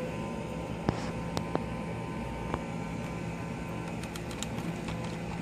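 A few sharp, light clicks and taps of laptop parts being handled during disassembly, over a steady background hum.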